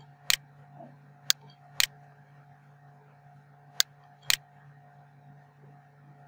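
Computer mouse clicking: five sharp clicks spread over the first four and a half seconds, while software dialog boxes are worked. A faint steady electrical hum runs underneath.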